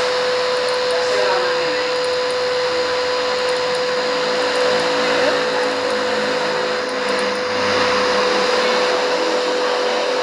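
Steady whirring of an electric machine motor with a constant hum tone, running without a break.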